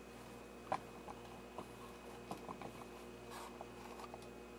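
Faint handling noise: a few soft, scattered clicks and light rustles, the clearest a little under a second in, over a steady low electrical hum.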